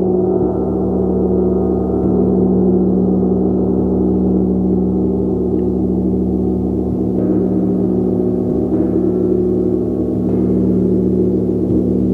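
Gong played continuously, a dense sustained wash of ringing low tones that swells and sways. A few fresh soft strokes add a brighter shimmer about seven, nine and ten seconds in.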